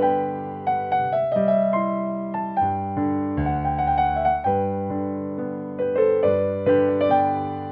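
Background music: a gentle piano tune of single notes and chords, each struck note fading before the next.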